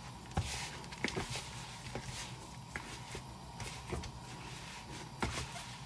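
A gloved hand pushing and squeezing marinated chicken wings in a bowl of flour to coat them, giving irregular soft thuds and the rustle of flour, with a couple of sharper knocks.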